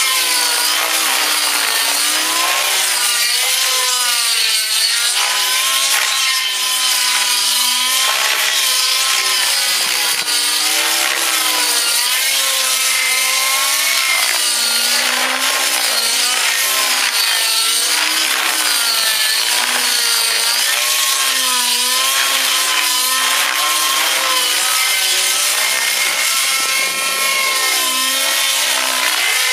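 Align T-Rex 700 radio-controlled helicopter flying aerobatics: a loud, steady whine and buzz from its drivetrain and rotor, its pitch wavering up and down every second or two.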